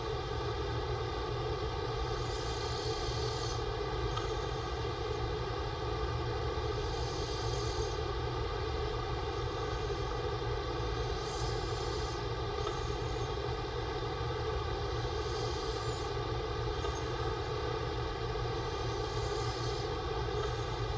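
A man snoring softly through an open mouth, a breath about every four seconds, under a steady droning hum.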